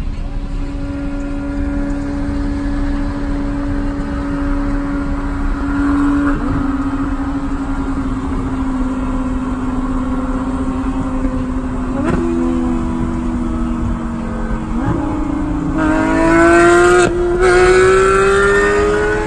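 Engine sound of a Porsche 911 GT3 RS with IPE exhaust and the supercharged Lamborghini Huracan it is filmed from, heard from inside the Huracan's cabin. At first the engines cruise at a steady pitch, with a few gear changes. About three seconds before the end they get much louder, the pitch climbing steadily under hard acceleration with a short break partway.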